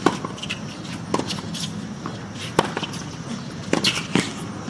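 A tennis serve and rally on a hard court: a handful of sharp pops of the ball being struck by rackets and bouncing on the court, spaced a second or so apart.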